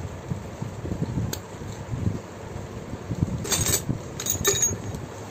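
Small metal clinks and rattles from a Bajaj RE Compact auto rickshaw's starter Bendix drive pinion assembly being handled and turned by hand. There is a light click about a second in, then two short bursts of clinking a little past halfway, over a low rumbling noise.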